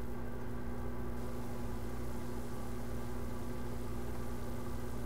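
Steady low electrical hum with several constant tones and a faint hiss, unchanging throughout.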